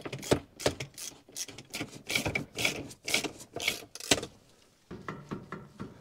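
Quick rasping ratchet strokes, about three a second, at the base of a BMW E46's handbrake lever as the handbrake cable adjusting nuts are tightened. The strokes stop about four seconds in and come back more faintly near the end.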